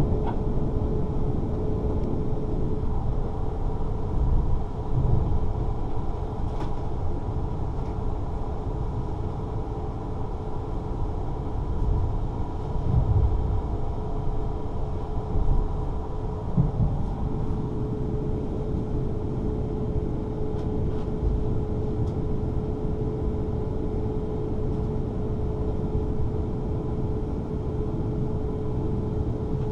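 Interior noise of a Class 444 Siemens Desiro electric multiple unit running on the line as it draws into a station: a low rumble from wheels on track with a few louder bumps and a steady hum.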